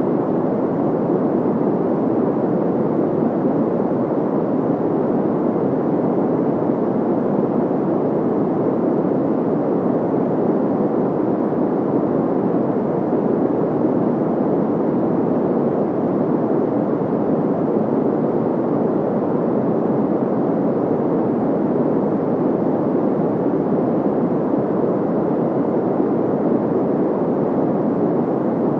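Steady, unchanging white-noise sound effect, filtered so that it sounds deep and muffled rather than hissy.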